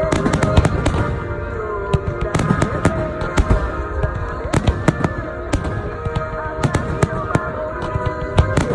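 Fireworks finale: many shells bursting in quick, irregular succession, several sharp bangs a second.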